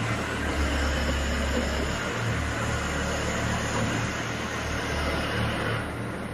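Integrated DTH drilling rig running: a steady low hum under a hiss, and the hiss eases off a little before the end.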